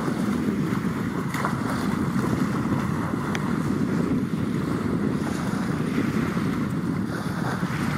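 Steady wind noise on the microphone over small waves washing onto a sandy shore.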